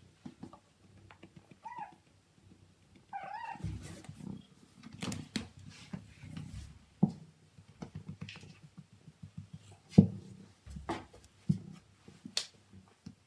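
Siamese cat purring, with two short wavering meows in the first four seconds. Scattered knocks and rubbing sounds come through as it rolls on the floor, the loudest knock about ten seconds in.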